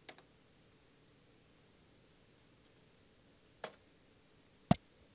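A few isolated sharp clicks from a computer keyboard and mouse being worked, about three in all, the loudest near the end. Under them runs a faint steady high-pitched whine.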